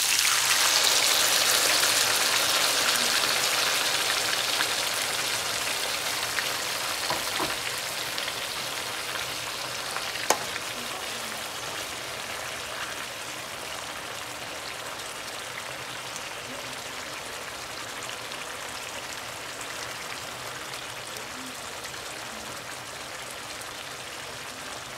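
Sauce sizzling hard in a hot pan of oil and spices just after being poured in, a dense frying hiss that is loudest at first and slowly dies down as it settles to a simmer. A single sharp knock about ten seconds in.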